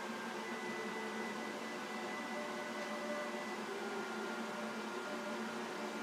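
Steady room hiss and hum in a small room, with a few faint held tones drifting through it.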